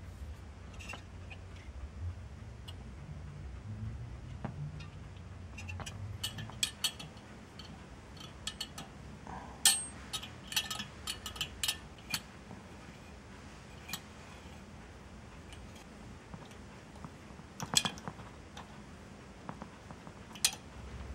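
Small metal parts clicking and clinking as CPU cooler hardware is handled, in irregular sharp clicks that cluster around the middle, with a louder pair near the end, over a low handling rumble in the first half.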